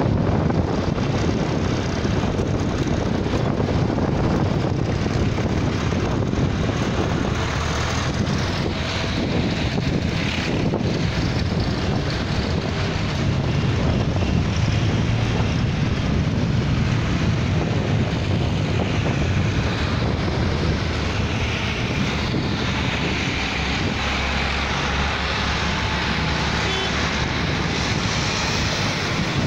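Engines of a long procession of tractors, many of them vintage, driving past in a steady stream, merging into one continuous drone.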